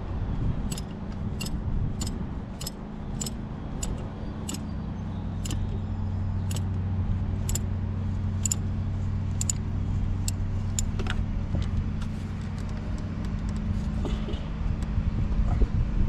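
Ratchet wrench clicking in a run of sharp ticks, about two to three a second, thinning out about ten seconds in, as a 24 mm socket is turned on the oil filter. A steady low hum runs underneath.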